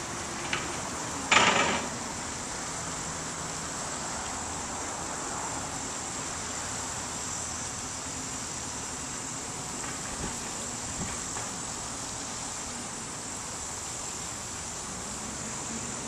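Steady outdoor background noise with a thin, even high-pitched drone, and one short, loud noise about a second and a half in.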